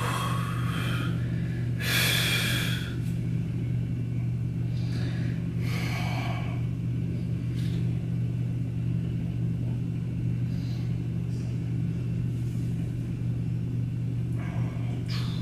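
A steady low hum, with a few short breaths on top, the loudest about two seconds in.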